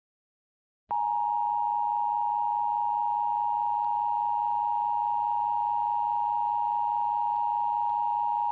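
Emergency Alert System attention signal: a steady two-tone electronic alert tone. It starts about a second in after a moment of silence.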